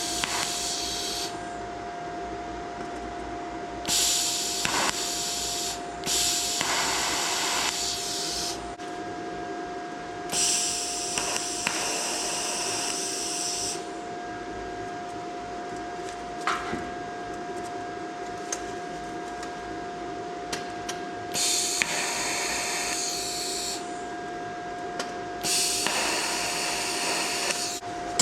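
A power grinder runs steadily on the hinge metal, with about six passes of two to three seconds where the abrasive bites the metal and a harsh high hiss surges over the motor's steady whine.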